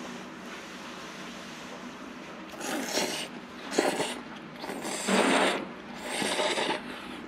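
A person slurping mazesoba noodles: four noisy slurps, the first about two and a half seconds in.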